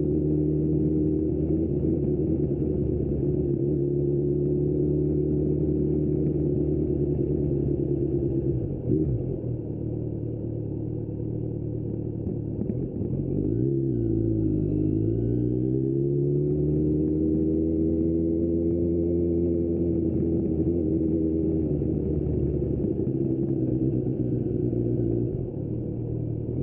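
2025 Kawasaki Z900 SE's inline-four, through an Austin Racing aftermarket exhaust, running under way at steady revs. About nine seconds in it goes quieter as the throttle eases off; around fourteen seconds the revs dip and then climb as it pulls away again, holding steady before another dip near the end.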